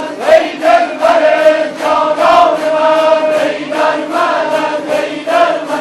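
Yarsan devotional music: many voices chanting together in unison to strummed tanburs, with a regular strumming rhythm about three strokes a second under the sustained chant.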